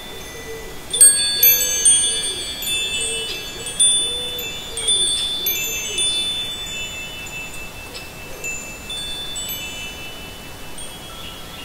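Wind chimes ringing: a cluster of strikes about a second in and several more over the next few seconds, each ringing on and slowly fading.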